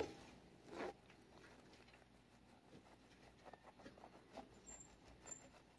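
Near silence, with one short rustle about a second in and faint scattered scuffs later: a leather work glove handling a cat.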